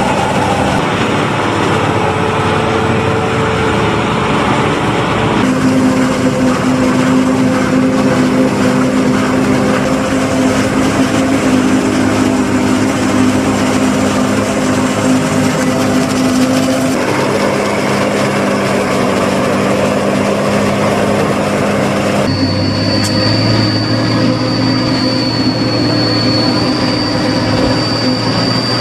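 A self-propelled John Deere forage harvester chopping maize, with tractors pulling tipping trailers alongside: a steady drone of large diesel engines and the chopper. The engine note shifts in tone several times, and about three-quarters of the way through a steady high whine joins it.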